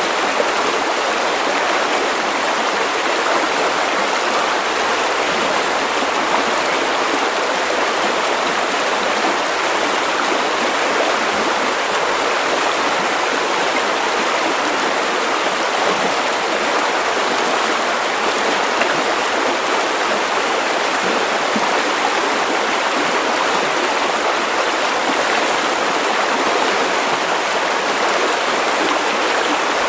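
A river running over stones: a steady, even rush and babble of flowing water.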